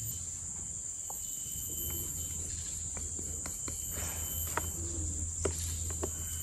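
Steady high-pitched chirring of insects, with scattered faint taps and rustles from hands working cornflour over fish on a plate.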